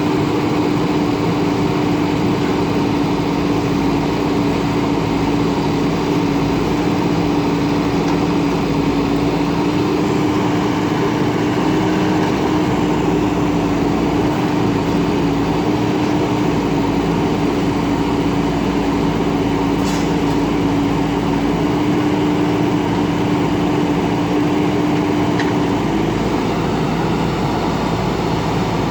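JCB backhoe loader's diesel engine running at a steady speed, a constant drone with a strong steady hum that shifts slightly near the end.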